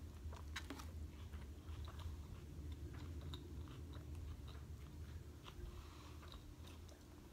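A person chewing food close to the microphone, with many small crisp clicks and crunches, over a low steady hum.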